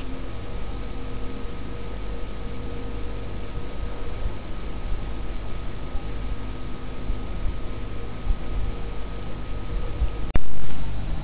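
A chorus of cicadas buzzing steadily in a high, finely pulsing drone over a low rumble. Near the end a sudden sharp click and a short loud burst cut the buzzing off.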